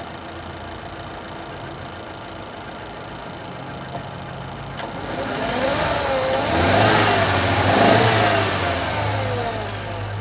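Renault Megane III's 1.2-litre turbocharged H5F petrol engine idling, then revved up about halfway through, rising in pitch twice before settling back to idle. The noise could point to an exhaust-system fault such as a leak or a worn component.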